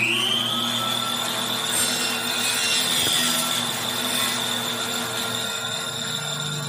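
Table saw running at full speed with a steady high whine, just after switching on, while a thin wooden strip is fed through the blade on a crosscut sled.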